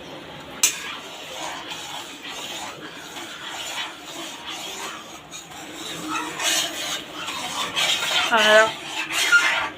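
A spoon stirring sugar syrup in a pan, scraping and clinking against the pan's sides, with a sharp click about half a second in. A voice is heard briefly near the end.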